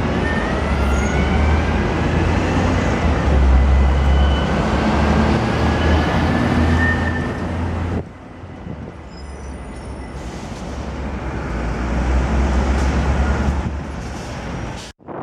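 Tram running past with a low rumble and a faint rising whine. About eight seconds in it cuts to a quieter passage that builds up again.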